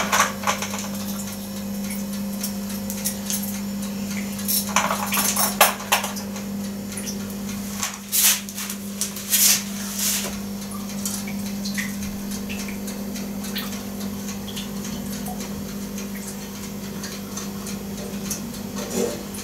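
Knocks and clatter of a bear-shaped baking tin being handled and set down, in a few bunches, then the lighter scrape and tap of a pastry brush greasing its cups with oil. A steady low hum runs underneath.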